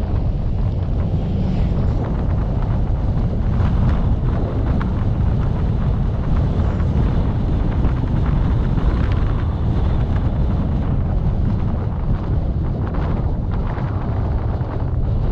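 Wind buffeting the microphone over the steady rumble of a moving vehicle, a loud, even low rumble with no breaks.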